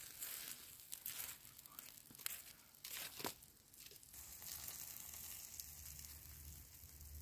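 Wooden sticks scraping and poking through the hot coals and ash of a campfire around a whole trout cooking on the embers, with faint crackling and sizzling. There are a few sharp crackles in the first three seconds or so, and a low steady hum comes in about four seconds in.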